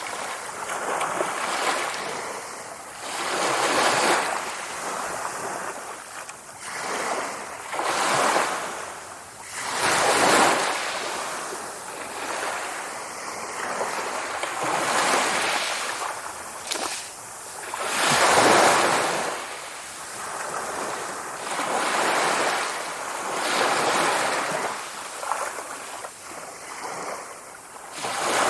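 Sea waves breaking and washing ashore: a rushing surf that swells and falls away every few seconds, with bigger breakers about four, ten and eighteen seconds in.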